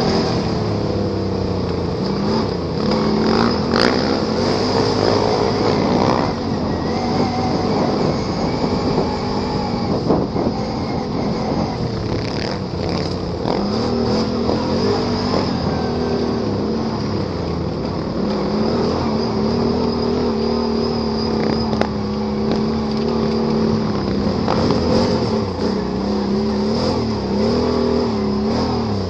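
Can-Am Renegade ATV engine running under constantly changing throttle on an off-road ride, its pitch rising and falling every few seconds, with a few short knocks from the machine over rough ground.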